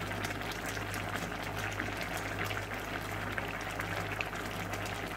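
A pot of bitter gourd curry bubbling at a rolling boil, with a dense, steady patter of small bubble pops over a low steady hum. The watery gravy is being boiled down to reduce it.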